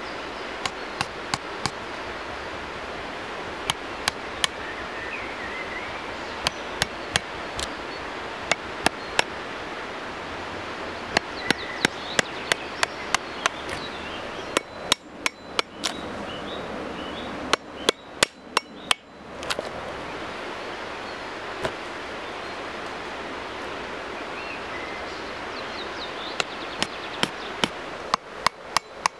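A knife blade being knocked down into the end grain of a log stump to hollow it out: sharp taps in quick runs of several strikes, with short pauses between runs.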